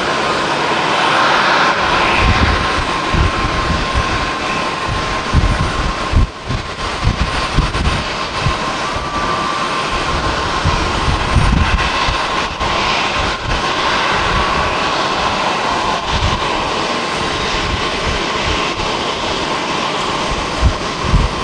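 Jet engines of a Boeing 787-9 running at low thrust as the airliner taxis, a steady hiss with a thin whine near 1 kHz. Irregular low gusts of wind buffet the microphone.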